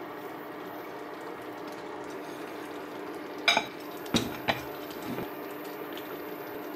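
Glass bowl clinking and knocking against a ceramic plate as it is turned over to unmould rice: a sharp clink about three and a half seconds in, then a knock and a second clink within the next second, and a soft thump, over a steady low hum.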